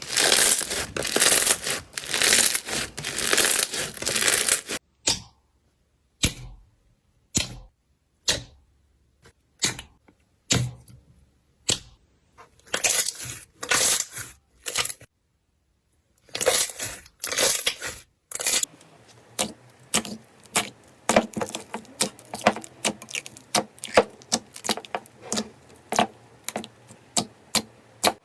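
Slime being squeezed and worked by hand: dense crunching for the first few seconds, then sharp separate pops and clicks with silences between, another short burst of crunching, and finally a long run of quick small clicks.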